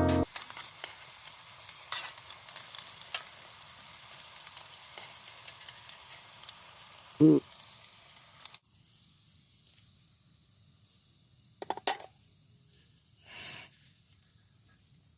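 Food sizzling and crackling as it fries in a pan, cutting off abruptly about eight and a half seconds in. After that, a few faint clicks and a short hiss.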